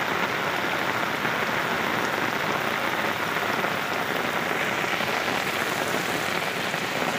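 Floodwater rushing across a road, a steady, even rushing of water with no breaks.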